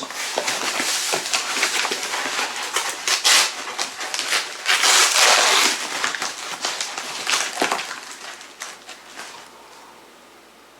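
A shipping package being torn open and its cardboard and wrapping handled, with irregular ripping and crackling that comes in heavier bursts and dies down over the last few seconds.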